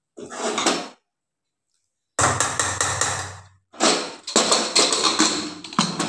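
A metal spoon scraping and clanking against an aluminium pressure cooker and a steel bowl while cooked khichdi is scooped out. It comes in three short spells; the last is full of sharp knocks.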